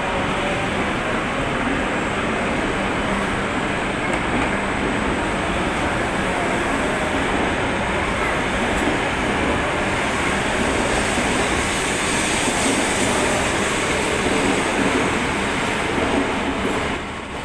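H5 series Shinkansen pulling out of the station and gathering speed: a steady rushing noise that swells slightly in the later seconds and drops off right at the end.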